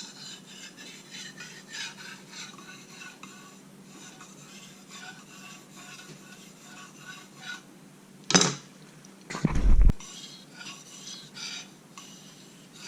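Steel knife blade being stroked along a wet Japanese water stone, short scraping strokes several a second. About eight seconds in comes a sharp knock, then a heavier low thump, the loudest sounds here, before the scraping goes on.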